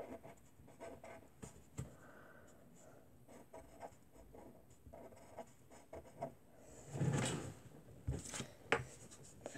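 Pencil writing on paper: faint, short scratching strokes, with a louder rustle about seven seconds in.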